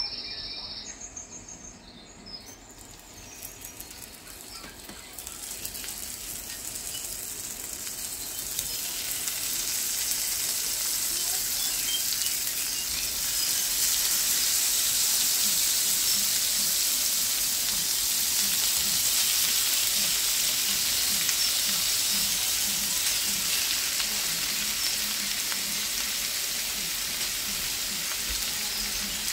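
Shrimp frying in butter in a pan, a sizzle that builds over the first several seconds and then holds steady.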